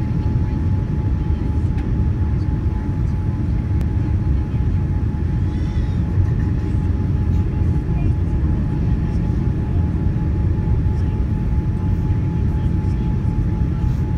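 Steady cabin noise inside a Boeing 787 Dreamliner on its landing approach: a low, even rumble of engines and airflow with a faint steady tone above it.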